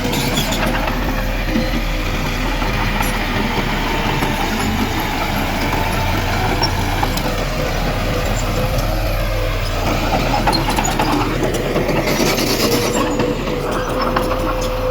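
Heavy diesel earthmoving machinery running steadily under load, with a constant whine and rattling clatter over the engine drone; a brief hiss rises about twelve seconds in.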